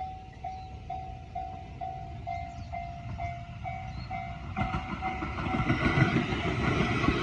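Japanese railway level-crossing warning bell dinging steadily, about twice a second. About four and a half seconds in, a train arrives and passes over the crossing, its rumble and wheel clatter growing loud and drowning the bell.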